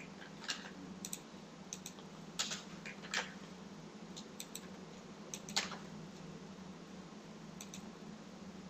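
Irregular clicks of computer keyboard keys and a mouse, a few taps louder than the rest and fewer near the end, over a faint steady low hum.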